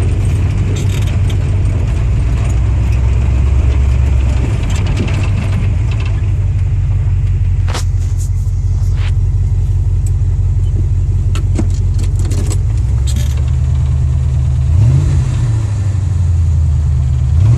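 302 V8 car engine running steadily, its pitch shifting a little, with a short rev about fifteen seconds in and a few sharp clicks in the middle. The owner hears a slight tapping or knocking from this engine when accelerating.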